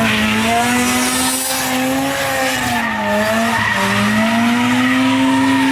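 A car's engine held at high revs while it does donuts, its pitch sagging about three seconds in and climbing back, over the continuous screech and hiss of spinning tyres.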